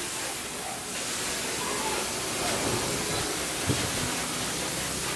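Steady hiss of running or spraying water, with a single short knock about three and a half seconds in.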